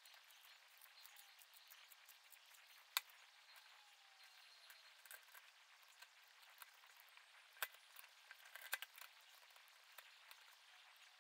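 Light clicks and clinks of aluminium plates and plastic parts being handled and set down on a table, over a faint hiss. The sharpest click comes about three seconds in, with a few more in the second half.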